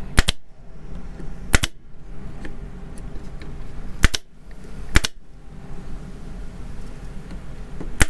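Harbor Freight pneumatic brad nailer firing 1¼-inch brad nails into wood: four sharp shots at uneven gaps, with a fifth at the very end.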